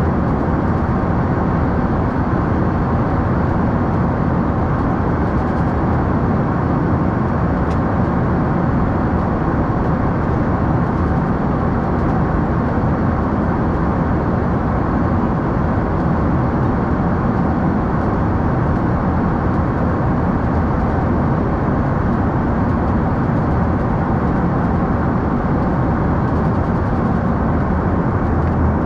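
Steady in-flight noise of an Embraer E145 regional jet heard inside the aircraft: the even rush of airflow and its twin rear-mounted turbofan engines, with no change in level.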